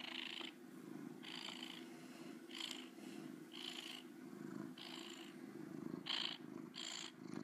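Domestic cat purring, a steady soft rumble with a breathy hiss roughly once a second as it breathes in and out.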